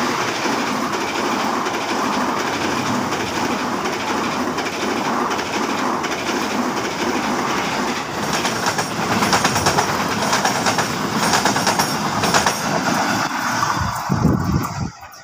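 Passenger train coaches passing close by at speed: a steady rolling rumble with wheels clattering rapidly over the rail joints. After a break about halfway through, a second train's coaches clatter past and draw away, the sound falling off sharply near the end.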